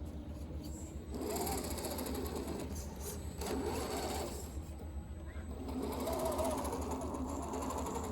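Electric motor and geartrain of a 1/10-scale RC crawler whining as it drives, the pitch rising and falling with the throttle. It picks up about a second in, eases off briefly past the four-second mark, and comes back near six seconds.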